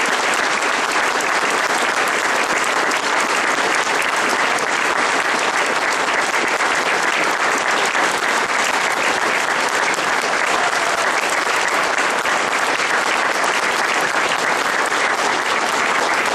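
A crowd of supporters applauding: dense, sustained clapping.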